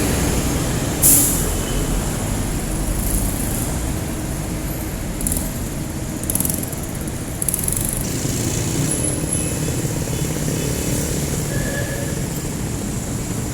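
Busy street traffic dominated by jeepney engines running, a steady low rumble. Several short, sharp hisses cut through it, the loudest about a second in and others around the middle.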